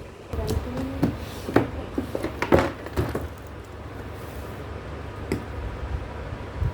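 A cardboard toy box and its contents being handled and pulled apart, with a run of knocks, taps and rustles over the first three seconds, then a few scattered clicks.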